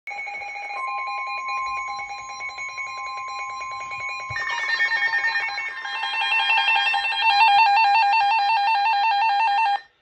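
NOAA weather alert radio alarm sounding for a severe thunderstorm warning: steady alert tones, joined about four seconds in by a louder, rapidly warbling alarm, then cut off suddenly just before the ten-second mark.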